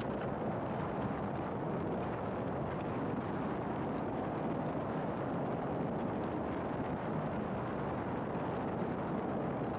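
Steady road noise of a car driving at a constant speed: an even rush of tyres and wind that does not change in level.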